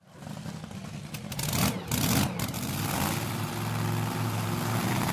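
A drag-racing engine fading in to a low, steady rumble, with a few sharp loud bursts in the first couple of seconds, then running on and getting louder.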